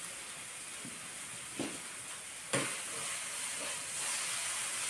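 Ground seed chutney with garlic and chillies frying in oil in a pan: a steady sizzle, with a spatula knocking against the pan twice, about one and a half and two and a half seconds in, the sizzle a little louder after the second knock.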